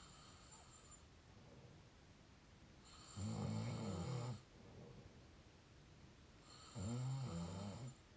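Someone snoring through an open mouth: two snores, each a little over a second long and about three and a half seconds apart, with a quieter, hissing breath near the start.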